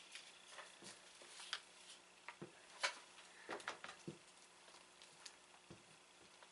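Faint scattered clicks and rustles of gloved hands squishing soft candy into a candy mold, the loudest click a little under halfway through.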